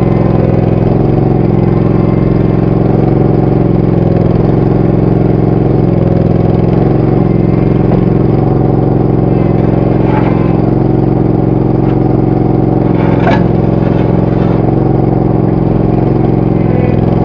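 Mini skid steer engine running at a steady speed, with a couple of short clanks about ten and thirteen seconds in.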